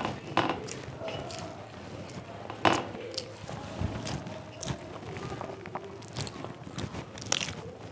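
A hand kneading and mixing rice with mashed vorta on a metal plate: soft squishing with scattered sharp clicks of fingers against the plate, the loudest about three seconds in.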